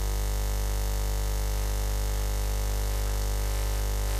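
Steady low electrical mains hum with a buzzy edge and a constant hiss, unchanging throughout, from the microphone and sound-system chain.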